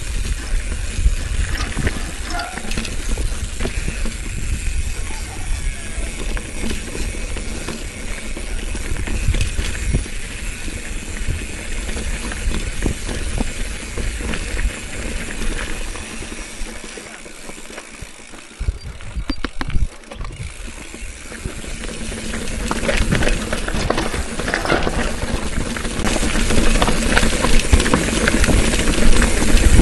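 Bicycle ridden along a rough dirt trail: the bike rattling and clicking over the bumps over a steady low rumble. It eases off for a few seconds past the middle, with a few sharp knocks, then grows louder toward the end.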